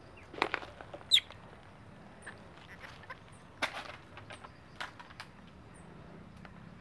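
Baby long-tailed macaque climbing a tree trunk: scattered scratches and rustles of its hands on bark and leaves, with one short high squeak about a second in.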